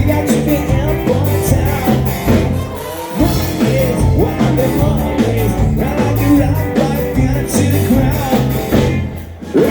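Ska-punk band playing live, with a singer over drums, bass and guitar. The playing drops out briefly just before the end.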